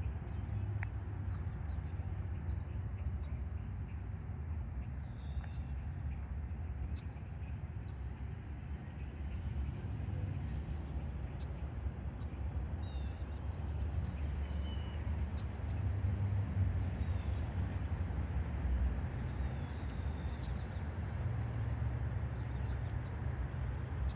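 Low background rumble with small birds chirping faintly now and then; no siren is sounding.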